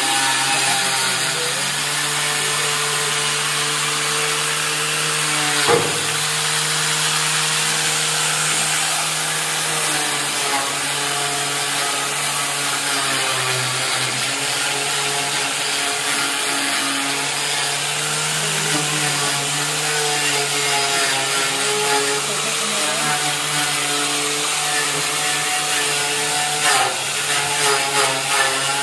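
Handheld electric power tool with a wire brush running steadily while it scours rust off the steel frame of a motorcycle tricycle's sidecar. Its motor hum sags briefly about halfway through as it is pressed into the metal, and there is a single sharp knock about six seconds in.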